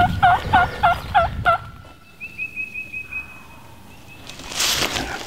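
Wild turkey gobbling close by: one loud, rapid string of about six notes lasting a second and a half. A faint run of short, high songbird notes follows.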